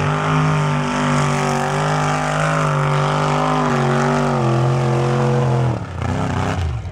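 Lifted Jeep mud bogger's engine held at high, steady revs as it churns through the mud, the note wavering only slightly. Near the end the revs fall away as the throttle comes off, leaving a lower, rougher engine note.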